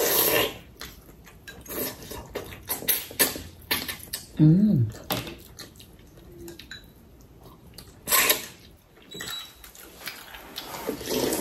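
Chopsticks and utensils clicking and clinking against ceramic bowls while people eat, irregular, with a few louder noisy bursts. A short hummed 'mm' comes about four and a half seconds in.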